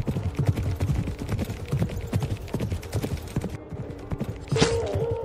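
Horses galloping: a fast, dense run of hoofbeats over faint background music, with a short held cry near the end.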